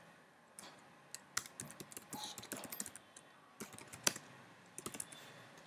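Typing on a computer keyboard: faint, irregular key clicks as a few words are typed.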